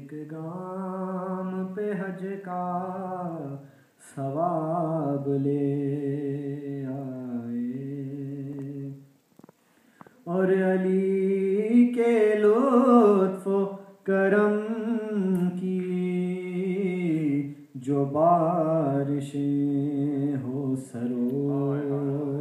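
A man's voice singing a manqabat, a devotional poem in praise of Imam Ali, without accompaniment into a handheld microphone. He sings long held notes with a wavering melody, in phrases of a few seconds with short pauses for breath between them.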